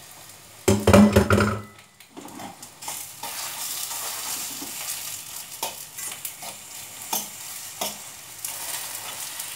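Plantain slices sizzling as they fry in a little oil in a frying pan, with a utensil tapping and scraping against the pan a few times. A loud clatter of the pan and utensil comes about a second in.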